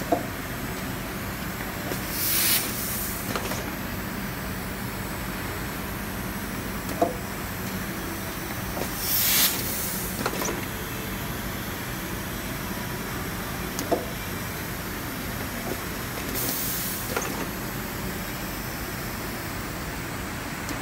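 ASPE Rapid Tag LP4 pneumatic rotary label printer running automatically. Over a steady hum, a sharp clack comes about every seven seconds, and each is followed a couple of seconds later by a burst of compressed-air hiss from the machine's pneumatics.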